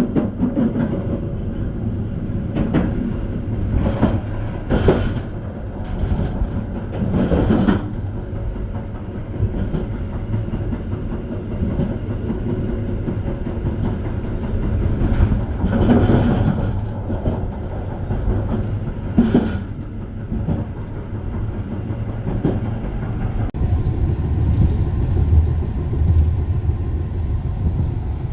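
Argo Bromo Anggrek passenger train running along the track, heard from inside a carriage: a steady rumble with scattered clacks of the wheels over the rails.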